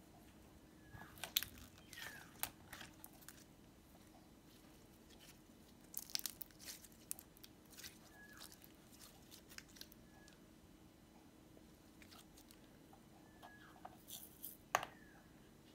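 Clear glitter slime squeezed and stretched by hand, giving scattered sticky clicks and small pops. They come in clusters about a second in, around six seconds in, and near the end.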